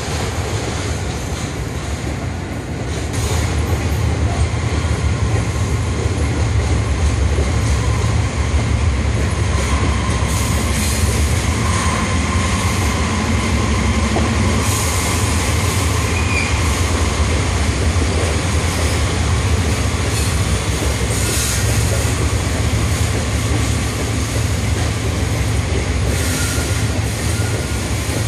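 Freight train cars rolling past: a steady low rumble of steel wheels on rail, getting louder about three seconds in, with a few faint brief wheel squeals.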